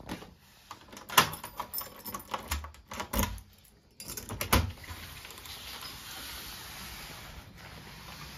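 A phone camera being handled and carried through a doorway: a series of sharp clicks, rattles and knocks, loudest about a second in and again around three to four and a half seconds in, then a steady hiss with the odd faint knock.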